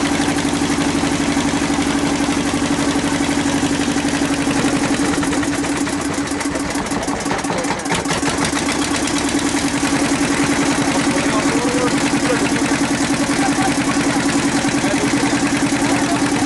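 An engine running steadily with a constant hum and fast, even pulsing; it dips briefly about seven seconds in.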